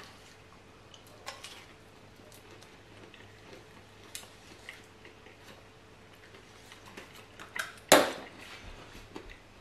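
Faint crinkling and small clicks as a foil lid is peeled off a small plastic dipping-sauce cup, with one louder, sharp crackle about eight seconds in.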